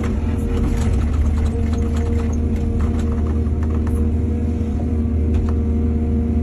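Excavator's diesel engine running steadily, with a scatter of sharp knocks and rattles over the first four seconds.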